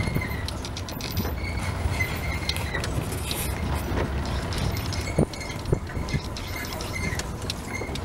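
Open safari jeep driving on a rough dirt track: a steady engine and road rumble, with two sharp knocks a little past halfway.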